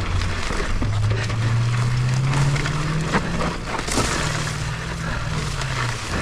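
Mountain bike riding fast down a dirt trail: the tyres crunch over the ground and the bike rattles and knocks over bumps, with a low hum that rises in pitch over the first few seconds and then holds.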